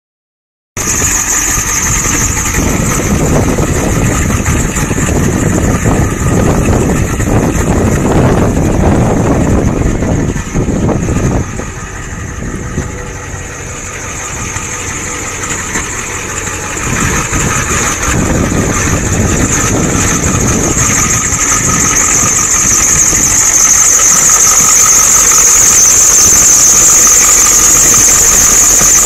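1993 Ford F250's 7.3-litre V8 diesel engine idling, with a steady high-pitched squeal above the engine noise that grows louder in the last few seconds.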